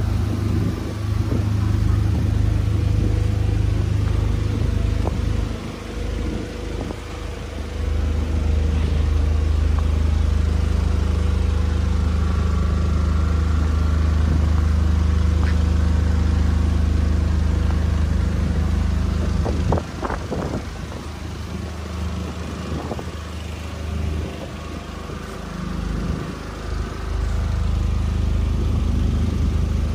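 Steady low mechanical hum, like an engine or motor running, over quiet street ambience. It drops away about twenty seconds in, with a few light knocks, and returns near the end.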